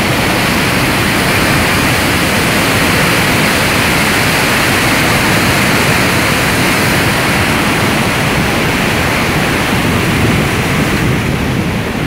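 A muddy flash-flood torrent rushing loudly and steadily as churning water.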